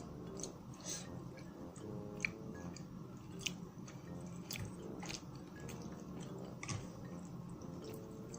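A person chewing and biting spicy malatang hotpot food, with scattered small wet clicks and smacks from the mouth.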